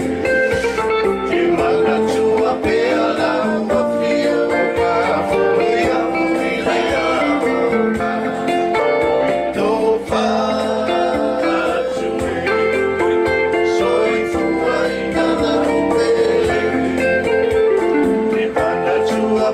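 A Samoan song sung to strummed string accompaniment, with a steady strumming rhythm.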